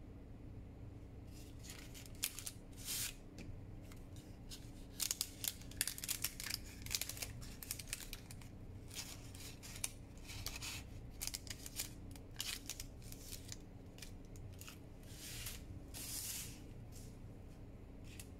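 Parchment-paper envelopes rustling and crinkling in quick, crisp bursts as they are handled and stacked, starting about a second and a half in and going on until near the end, over a faint steady low hum.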